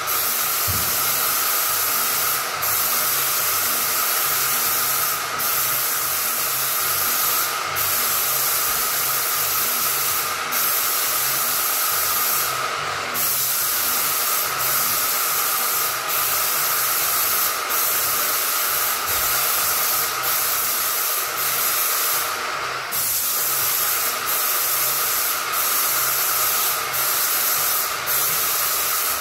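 Paint spray gun hissing steadily as it sprays primer onto drywall, the spray cutting out briefly every couple of seconds between passes.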